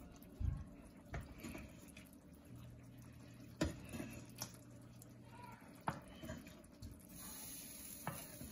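Faint kitchen handling sounds: a few scattered clicks and knocks of utensils and dishes, with a soft hiss near the end.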